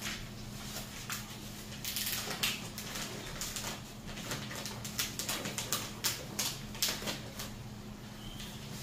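Self-adhesive contact paper crinkling and crackling as it is handled and its backing sheet peeled, in irregular sharp crackles that come thickest in the middle. A steady low hum runs underneath.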